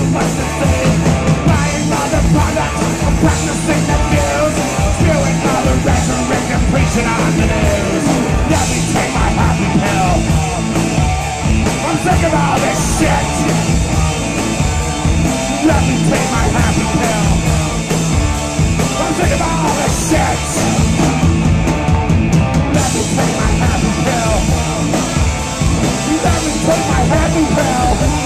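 Live punk rock band playing loud and without a break: electric bass, guitars and drums under a singer's raw, shouted vocals.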